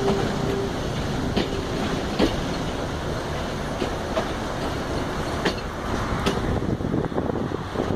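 Passenger train rolling along the track, heard from an open carriage window: a steady rumble of wheels on rail, broken by irregular sharp clicks and knocks from the wheels and carriages.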